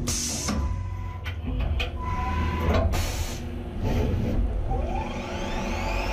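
Skyfire SVM-2 CNC vertical mill running between operations: a steady mechanical rumble with scattered clicks and knocks as the table traverses, then a whine rising in pitch about five seconds in as the spindle speeds up.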